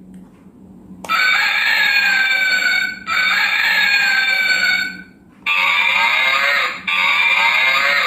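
Toy mobile phone's small speaker playing recorded rooster crowing and hen clucking, four short clips in a row, each starting abruptly: two with a slowly falling pitch, then two wavering ones. The sound is tinny, with no low end.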